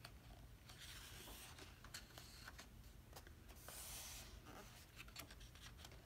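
Faint rustle of photo book pages being turned by hand: two soft paper swishes, about a second in and again about two-thirds through, with a few small taps and clicks of fingers on the pages.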